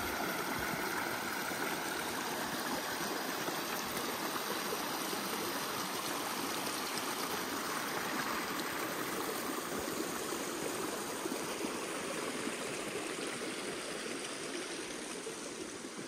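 Small mountain creek running over rocks: a steady rush of water, fading slightly near the end.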